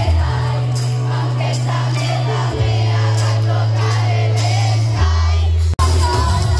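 Live concert music over a large PA, with long held deep bass notes that change pitch a few times and singing over them, picked up from the crowd at the front of the stage.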